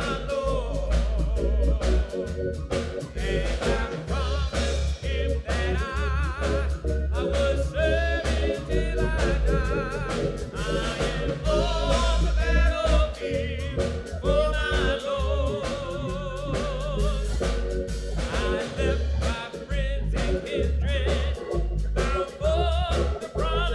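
A man singing a gospel song with heavy vibrato into a microphone, over sustained keyboard chords and a pulsing bass with a steady beat.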